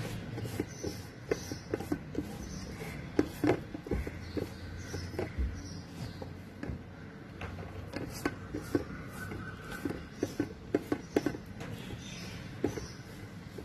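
Hands patting and spreading thick gram-flour batter over colocasia leaves on a steel surface: irregular soft pats and taps, a few louder ones.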